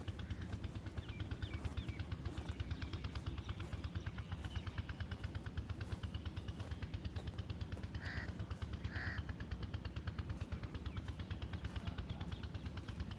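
Two crow caws about a second apart, over a steady, fast, even pulsing of roughly ten beats a second, heaviest in the low end, like a small engine running.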